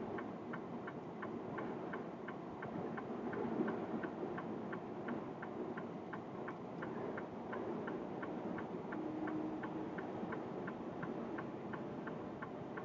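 Vehicle flasher relay ticking steadily, about three ticks a second, over steady road and engine noise inside a truck cab.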